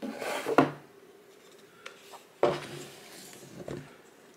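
Cardboard packaging being handled: rustling and knocks as the boxes are moved, with a sharp knock about half a second in and another about two and a half seconds in.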